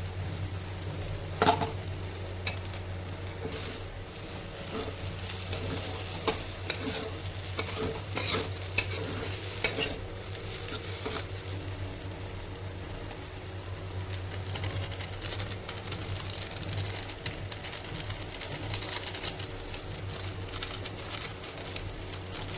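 Veg chowmein noodles sizzling as they are stir-fried in a pan, with a spatula clicking and scraping against the pan now and then, over a steady low hum.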